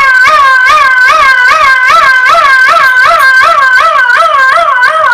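A man imitating an ambulance siren with his voice through a microphone: a fast, even wail whose pitch swings up and down about three times a second.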